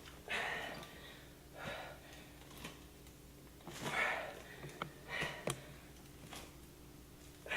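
A person breathing hard during exercise, with short forceful exhales every second or so and a few light clicks among them.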